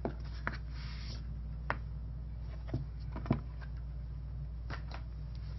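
Light handling sounds as an iPad is pushed out of its foam-lined case and picked up: a short rustle about a second in and about seven scattered light taps and knocks, over a steady low hum.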